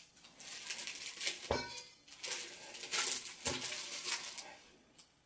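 Rustling of white cloth-covered cushions being smoothed and patted by hand, in uneven bursts, with two soft knocks about a second and a half and three and a half seconds in.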